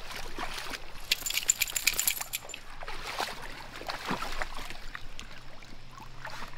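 Shallow creek water trickling over rocks as two dogs wade through it, their legs splashing in the water, with a quick flurry of splashes about a second in.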